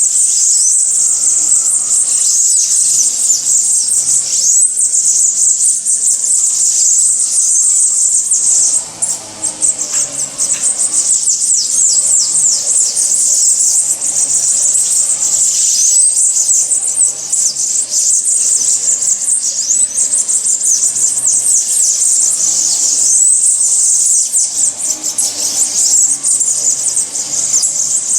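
Many small birds chirping and twittering at once, a dense, continuous high-pitched chorus of overlapping short calls, with some lower, fainter song notes beneath.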